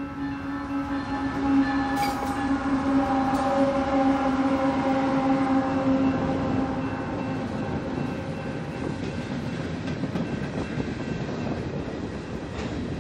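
Canadian National diesel-hauled freight train passing close by. The locomotives go by with a steady humming tone that fades away over the first seven seconds or so. The freight cars then roll past with a steady rumble of wheels on rail and an occasional sharp click.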